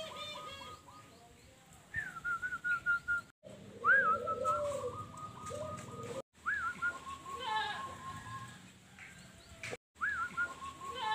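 Zebra dove (perkutut) cooing in repeated phrases, each a rising-then-falling opening note followed by a quick string of short stuttering notes. Other birds call more faintly in the background.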